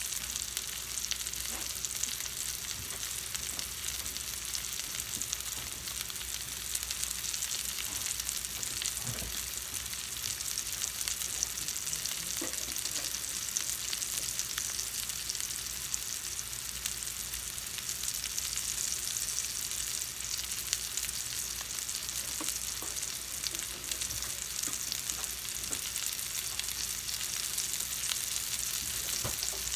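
Potato wedges frying in hot oil in a stainless steel skillet: a steady sizzle with fine crackling.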